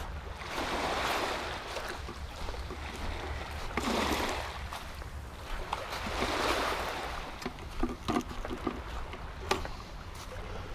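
Small sea waves washing onto the shore, swelling up and falling back three times, over a steady low wind rumble on the microphone. A few short knocks sound in the last few seconds.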